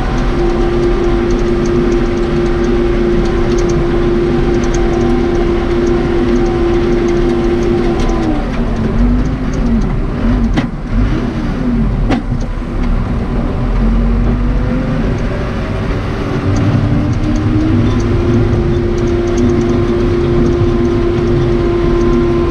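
Case 580 Super K backhoe's Cummins 4BT four-cylinder diesel running hard at a steady pitch. About a third of the way in the engine speed drops and wavers, with two sharp knocks in the middle, then climbs back to full speed near the end.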